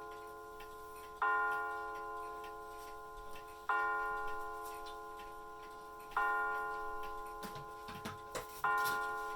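Bulova pendulum mantel clock's chime striking the same bell tone four times, about two and a half seconds apart, each stroke ringing out and fading before the next, as when it counts the hour. A few faint knocks come near the end.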